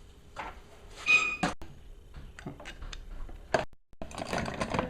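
Clicks and knocks of small MerCruiser Alpha One outdrive parts being handled, with one ringing metallic clink about a second in and a denser rattle near the end.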